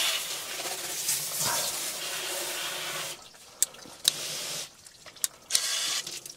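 Water spraying from a garden-hose spray nozzle into a drum chicken plucker. About three seconds in the spray cuts out and comes back in short spurts, with a few sharp clicks as the nozzle is switched between spray settings.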